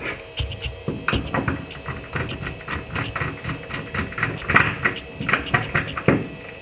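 Irregular metallic clicks and taps of a screwdriver and a small nut being worked onto a wiring terminal post of a fuel pump and sending unit, several a second, with a couple of louder knocks near the end.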